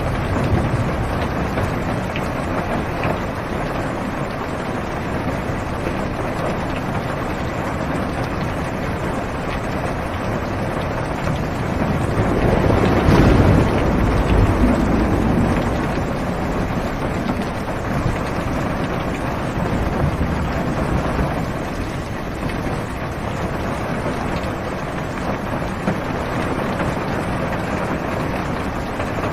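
Steady heavy rain on a car, heard from inside the cabin, as an even hiss. About twelve seconds in, a low rumble of thunder swells, then fades over a few seconds.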